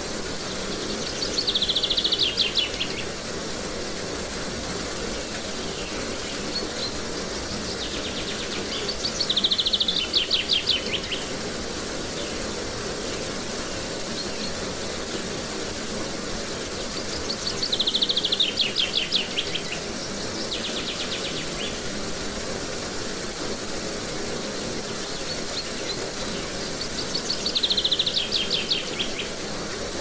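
Steady rush of water from a small cascade, with a songbird singing a fast trill four times, roughly every nine seconds. Each phrase opens with a single high note and runs into a rapid series of high notes lasting about two seconds, falling slightly in pitch.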